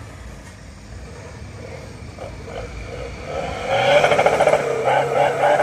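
A car's engine and exhaust. Low and faint at first, then from about three and a half seconds in it grows loud, a steady drone whose pitch rises slightly and holds, with a fast rattly crackle over it.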